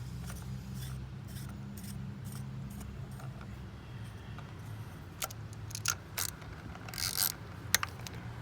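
Scattered sharp clicks and light scrapes of tools and parts being handled while ignition coil packs are pulled from a car engine, with a cluster of clicks about seven seconds in. A faint steady low hum runs underneath.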